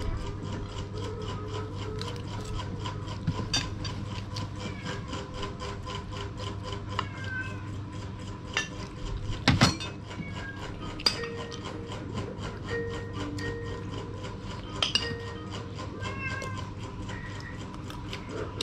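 Eating sounds at a table: metal spoons clicking and scraping on plates, over a steady low hum. Brief high-pitched chirping calls come now and then, and a louder clatter comes about halfway through.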